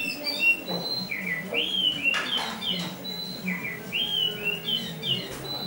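A caged Oriental magpie-robin of the black-bellied local Indonesian form (kacer dada hitam) singing: a run of short, clear whistled notes, many arching up and then down, strung together in quick phrases.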